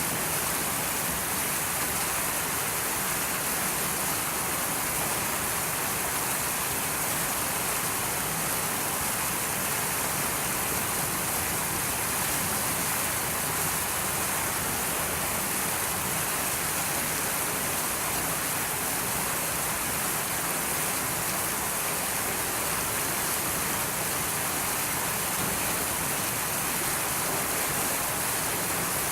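Steady, even rushing noise like rain or falling water, unchanging throughout.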